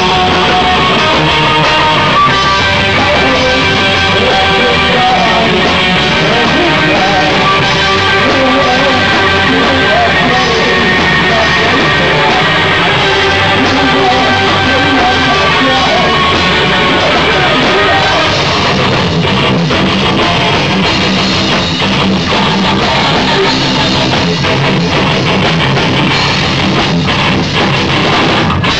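A rock band playing live at close range: electric guitar, bass guitar and a full drum kit, loud and continuous.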